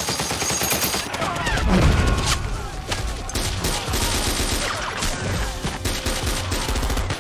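Dense, rapid gunfire from a war-film battle scene, with a belt-fed machine gun firing. A deep low rumble comes in under the shots about a second in.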